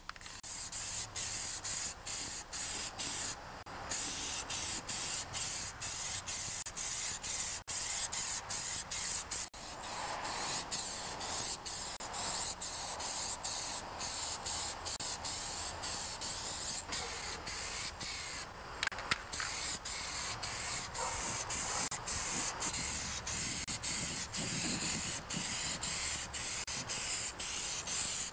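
Aerosol can of green spray paint being sprayed onto a tractor fender: a steady high hiss, broken by many brief gaps as the nozzle is let up between passes.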